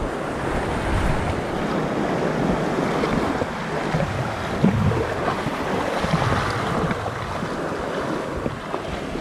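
Small waves washing up over a sandy shore in the shallows, with wind buffeting the microphone; a steady, unbroken rush.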